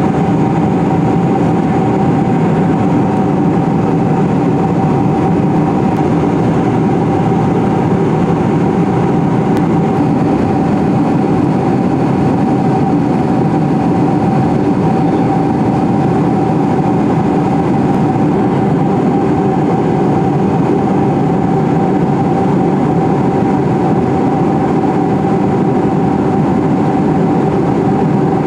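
Steady cabin noise of a Boeing 747-400 in flight, heard from inside the cabin beside the wing: an even, loud drone of engines and rushing air with one steady whine running through it.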